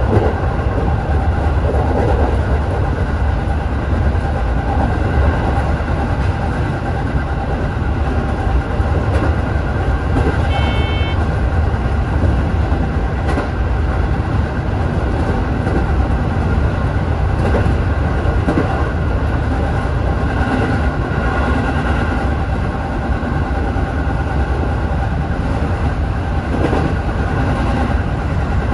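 JR 205 series electric commuter train running along the line, heard from the driver's cab: a steady rumble of motors and wheels on the rails, with a brief high beep about ten seconds in.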